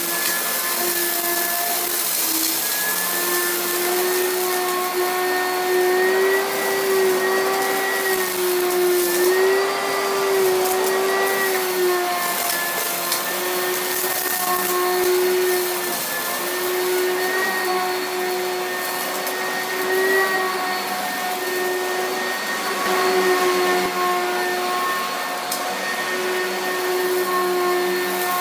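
Upright vacuum cleaner running on carpet and picking up loose debris. Its motor hums steadily, with the pitch wavering slightly as it is pushed back and forth, and a few short clicks as grit goes up the nozzle.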